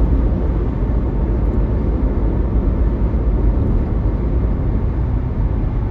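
Steady road and tyre rumble inside a moving car's cabin.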